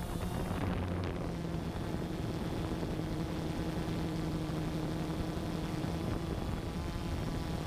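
Drone's electric motor and propeller running steadily in flight, heard from the onboard camera as a continuous hum with a faint whine above it, over wind rushing past the microphone.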